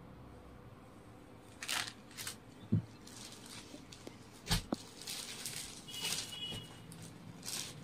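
Soft, intermittent rustles of saree fabric being handled and unfolded, with a couple of light knocks in between.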